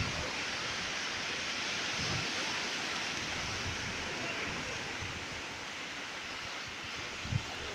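Sea surf washing ashore as a steady, even rushing hiss, with a brief low bump near the end.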